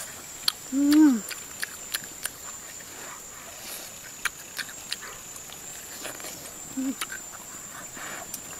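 Close-up eating sounds of grilled chicken wing being bitten and chewed: many sharp clicks and lip smacks. About a second in comes a short hummed 'mm' from the eater, the loudest sound, rising and falling in pitch, and a briefer one near 7 seconds.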